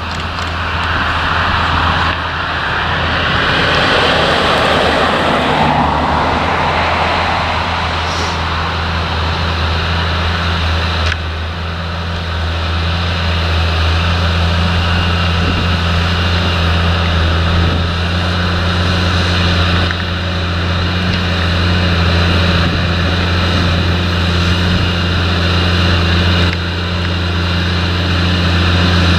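Fendt 930 tractor's six-cylinder diesel engine running steadily under load while pulling a plough through heavy soil: a constant low drone. A rushing noise lies over it for the first several seconds.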